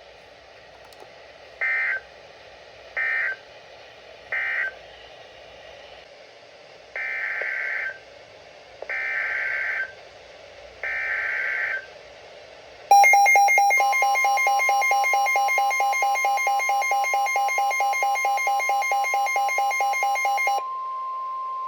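NOAA Weather Radio SAME (EAS) data bursts: three short buzzy bursts closing the previous message, then three longer header bursts announcing the next one. About 13 seconds in, a loud pulsing electronic alarm starts. The steady 1050 Hz weather-radio warning tone joins it a moment later and keeps sounding after the pulsing stops, at about 20 seconds.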